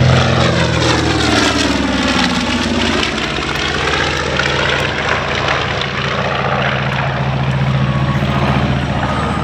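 North American B-25J Mitchell's twin Wright R-2600 radial engines running loud and steady in a close flyby. A sweeping whoosh accompanies the pass, and the tone falls slightly as the bomber goes by and banks away.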